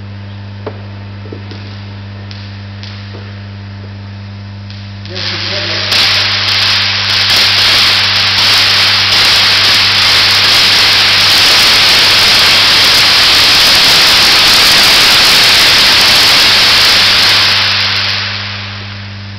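High-voltage test transformer humming, then from about five seconds in a loud, sustained hissing crackle of corona and surface discharge on a glass insulator under high voltage. The crackle lasts about thirteen seconds and fades out near the end, leaving the hum again.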